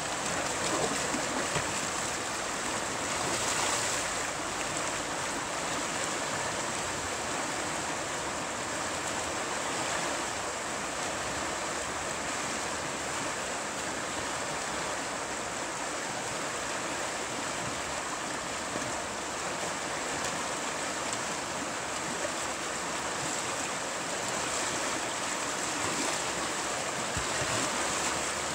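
Steady rush of white water pouring over rocks in a shallow river rapid.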